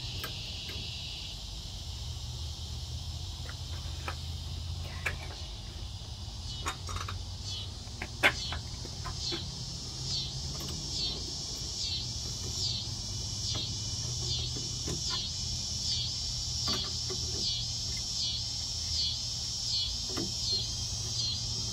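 Cicadas ("locusts") buzzing loudly: a high, steady drone that from about nine seconds in swells and fades in a regular pulse roughly once a second. A few light metal clicks come from the wrench and steel tool arm about five to eight seconds in.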